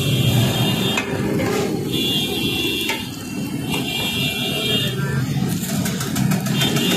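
Eggs sizzling on a large flat iron griddle over a steady low rumble of road traffic, with a run of quick metal scrapes and taps against the griddle about five and a half seconds in.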